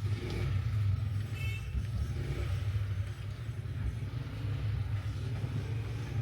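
Steady low rumble of a running vehicle, with no change in pitch.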